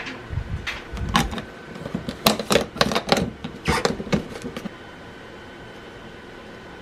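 A quick run of about a dozen sharp clicks and knocks, like small hard objects being handled, over a faint steady hum. The clicks stop about four and a half seconds in.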